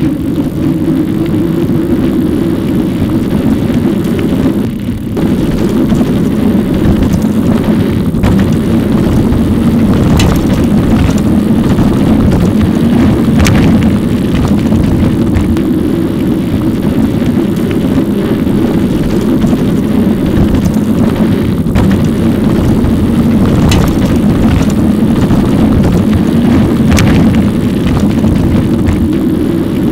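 Steady, loud droning rush of wind and road noise picked up by a bike-mounted camera, played back about thirteen times fast so it runs together into a continuous whir, with a few brief clicks.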